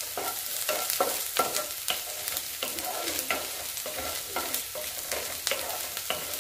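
Chopped onions sizzling steadily in hot mustard oil in a nonstick kadhai. A wooden spatula stirs them, its strokes against the pan scraping or tapping about every half second.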